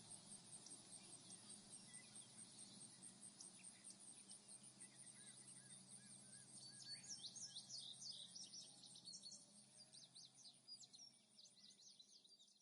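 Faint outdoor ambience: an insect trilling steadily and high, with birds chirping from about halfway in, fading out near the end.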